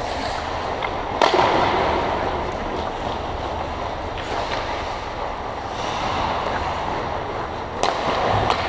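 Ice hockey play echoing in an indoor rink: skate blades scraping the ice over a steady hall rumble, with a sharp crack about a second in and two more near the end.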